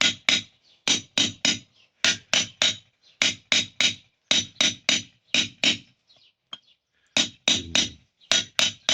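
A fast rhythmic run of sharp percussive hits, about three or four a second in short groups, breaking off briefly about six seconds in.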